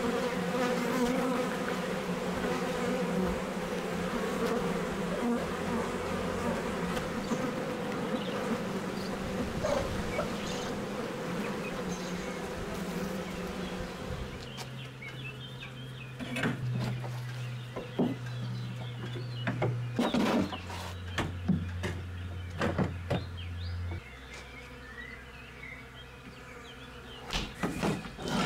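Honeybees buzzing in a dense, steady hum over the top bars of an open hive. About halfway through the hum fades and gives way to quieter sound with a few scattered knocks.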